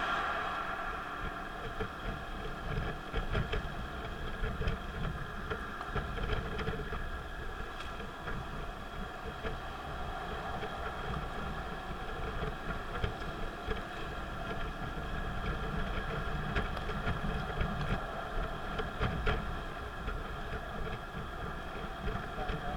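Car driving at speed on an expressway, heard from inside the cabin: a steady engine and road-noise rumble with a few light clicks.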